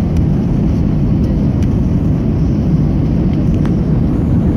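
Steady low rumble inside an airliner cabin on final approach, from the jet engines and the airflow over the airframe with flaps extended. A few faint ticks of cabin rattle sound over it.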